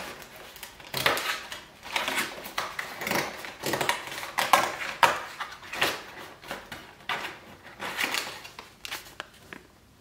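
Fingers picking and prising at a stuck cardboard door of an advent calendar: irregular scratching, scraping and rustling of card, dying away near the end.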